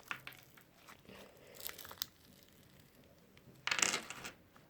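Fluffy slime made with shaving foam being squished and pulled by hand: scattered small crackling clicks, then one louder squelching burst about four seconds in.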